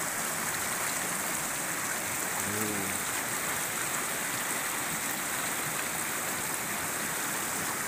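Shallow rocky river rushing over boulders in small rapids: a steady, even rush of water.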